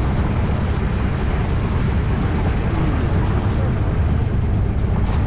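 Steady low engine rumble mixed with wind noise, heard while riding along, with faint voices in the background.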